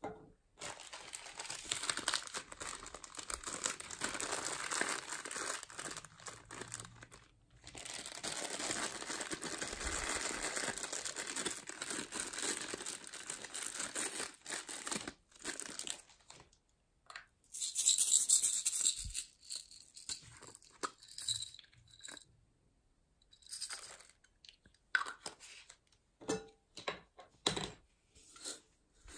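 Small plastic packets crinkling and being torn open as add-ins such as pom-poms are unpacked over a slime dish. The crackling is continuous for about the first half, then comes in short bursts, the loudest about two-thirds of the way through.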